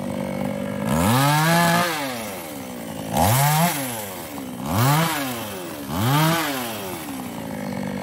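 New West 628 two-stroke chainsaw idling, then revved four times with no wood in the cut, each rev rising in pitch and falling back to idle.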